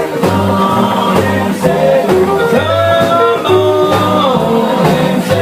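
Live band playing: a bass line repeating about two notes a second under a held, wavering melody line.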